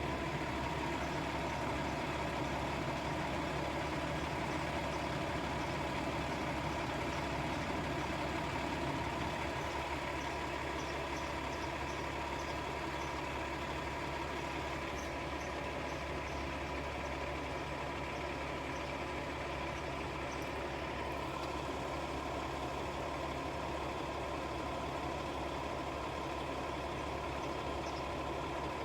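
Steady low mechanical hum of a running motor, unchanging throughout.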